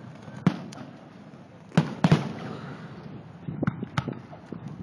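Fireworks aerial shells bursting in sharp bangs: one about half a second in, a louder pair close together near the two-second mark, and a few lighter cracks near the end.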